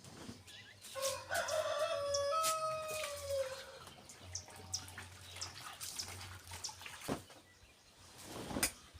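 A rooster crows once: a drawn-out call of about three seconds starting about a second in. Scattered splashes and drips of water run alongside, from laundry being washed by hand.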